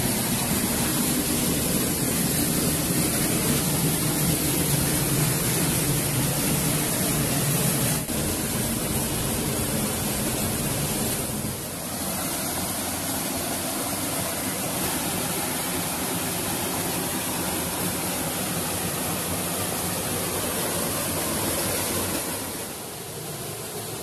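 Rushing water of a small waterfall and cascading stream, a steady hiss. It shifts abruptly about a third of the way in and again about halfway, then drops quieter near the end.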